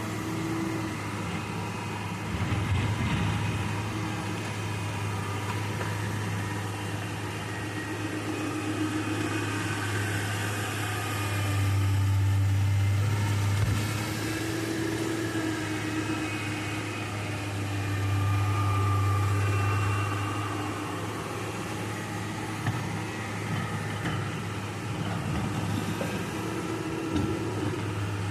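Excavator's diesel engine running steadily, swelling louder twice as it works, with a few scattered knocks.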